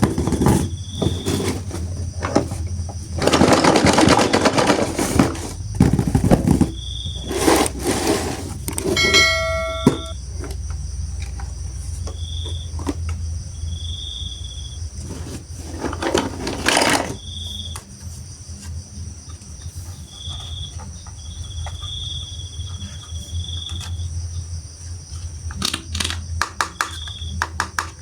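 Bursts of rustling and handling noise, with a short falling run of chime-like tones about nine seconds in, over a steady low hum.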